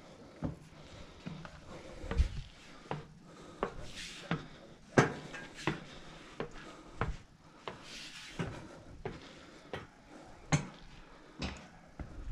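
Footsteps on the weathered wooden treads of a steel fire-tower staircase: irregular hollow knocks, roughly one a second, as someone climbs the stairs.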